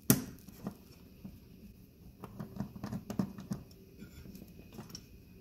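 Hand Phillips screwdriver backing a small screw out of the metal port guard on a TV main board. A sharp click comes at the start, then irregular faint ticks and scrapes of metal on metal, with a cluster of them about halfway through.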